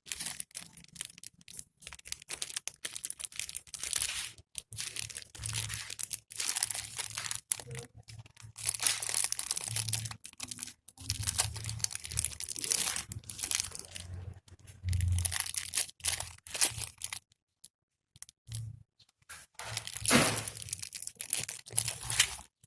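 A package being torn open and its wrapping crinkled and crumpled by hand, in irregular stop-start rustles with short pauses between.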